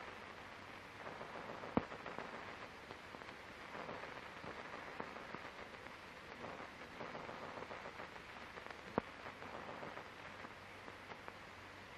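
Faint hiss and crackle of an old film soundtrack, with two sharp pops, one about two seconds in and one near nine seconds. No aircraft engine is heard.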